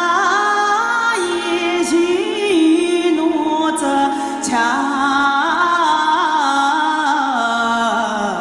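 A woman's voice singing a slow, ornamented, wavering melody over a steady held harmonium drone, with a few light ticks from percussion.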